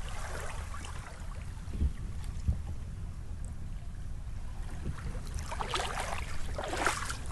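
Small lake waves lapping against a cobble shoreline, with a low wind rumble on the microphone. There are a couple of soft knocks a couple of seconds in and short noisy bursts near the end.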